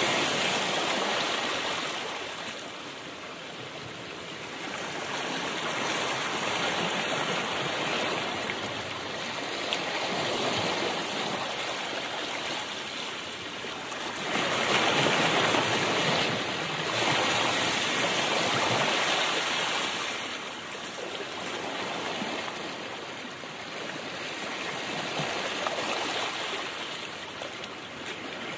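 A steady rushing noise, like water or surf, that swells and eases every few seconds.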